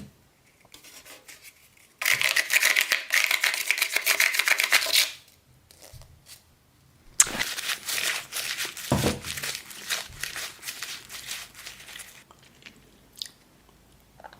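Close-miked, crisp crunching and tearing noises in two long spells, about three seconds and about five seconds long, with quiet and a few small clicks between them.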